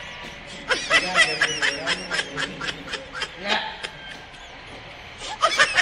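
High-pitched giggling laughter in quick, repeated bursts, starting just under a second in and running to about three and a half seconds, with a quieter stretch before more giggling near the end.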